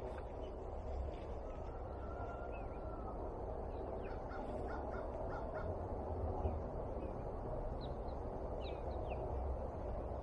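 Crows cawing, a short run of calls, with small birds chirping, over a steady low background noise.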